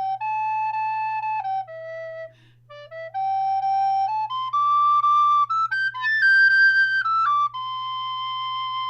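Moeck Rottenburgh rosewood soprano recorder playing the closing phrase of a cheerful melody: stepped notes with a quick run about two seconds in, climbing to its highest notes about six seconds in, then settling on one long held final note.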